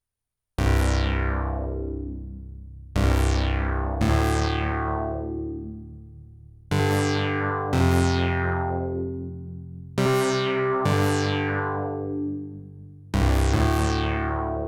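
Arturia MicroFreak synthesizer playing eight struck, piano-like chords, mostly in pairs. Each starts sharply and bright, then dulls as it fades over one to three seconds.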